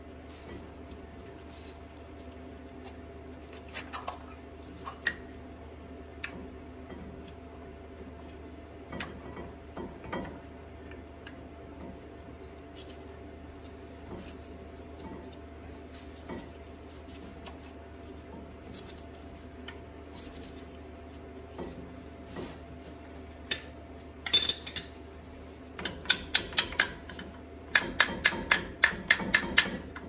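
Metal clicks and clinks of brake pads and their shims being handled and seated in a front disc brake caliper. In the last few seconds comes a quick run of sharp taps from a ball-peen hammer striking the caliper, several a second.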